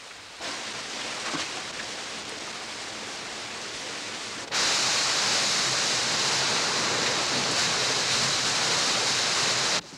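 Rushing water at a watermill. A steady rush starts under a second in, then about halfway through jumps to a much louder, hissier rush, and cuts off suddenly near the end.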